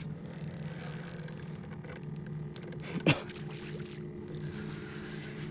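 A boat motor running with a steady low hum, with one sharp knock about three seconds in.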